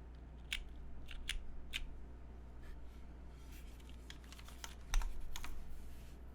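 Mechanical keyboard being typed on in separate, unhurried keystrokes: a Silvia custom board with lubed Cherry MX Clear tactile switches in an aluminium plate, o-ring mounted. The keystrokes are a few isolated clacks, then a short cluster with one louder, deeper stroke about five seconds in.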